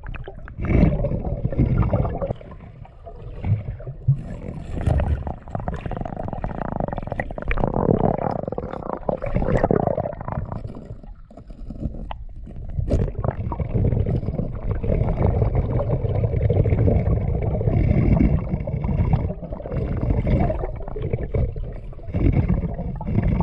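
Muffled underwater noise picked up by a camera submerged in a river: a low, uneven rumbling and gurgling of moving water that swells and fades, with a few faint knocks.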